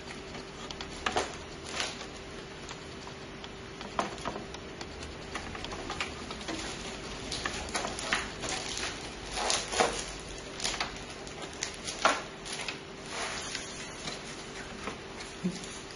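Irregular clicks, taps and rustles of hands handling cables and parts inside a desktop PC case, over a steady faint hum.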